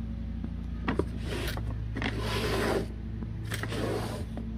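A firework cake being handled and turned over: a knock about a second in, then three scraping, rubbing passes of its packaging, over a steady low hum.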